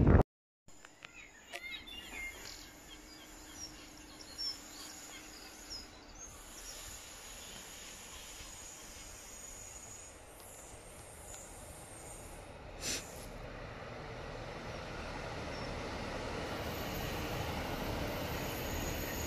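A passenger multiple-unit train approaching and passing close by, its rumble building steadily over the last several seconds. Birds chirp in the first few seconds.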